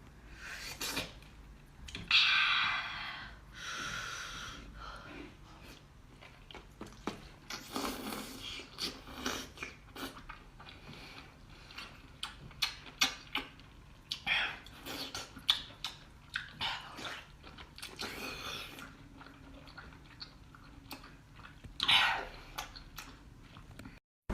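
A person chewing seafood: irregular wet clicks and short crunchy bursts, with louder bursts about two seconds in and again near the end.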